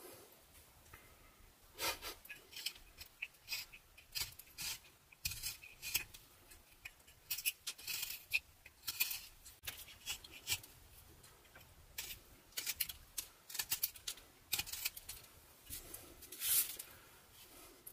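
Carving knife slicing thin shavings from a block of butternut wood in a quick, irregular series of short, crisp cuts, about one or two a second, with a longer, louder cut near the end.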